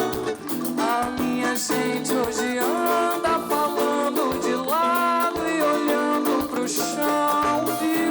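Live band music with guitar, playing steadily.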